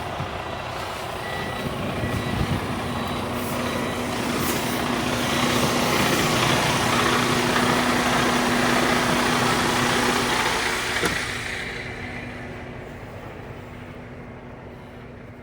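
Diesel semi-truck running, a steady low hum under a wider noise that swells over several seconds, then dies away after a sharp click.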